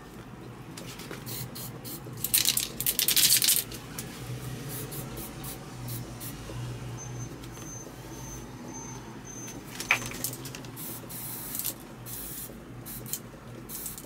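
Aerosol can of gold lacquer spray paint hissing in short bursts, the longest lasting about a second and a half, with a sharp click once later on.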